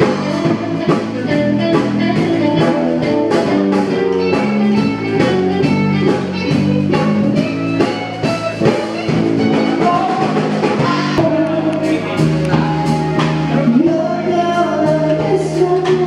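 Background music: a song with singing over a band with a steady beat, cutting off abruptly at the end.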